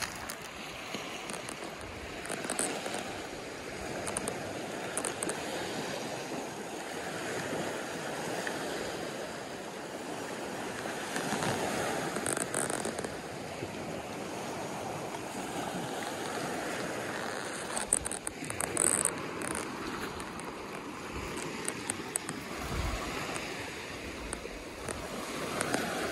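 Small ocean waves breaking and washing up a pebbly black-sand beach, the surf swelling and ebbing every few seconds. A few brief sharp clicks stand out about two-thirds of the way through.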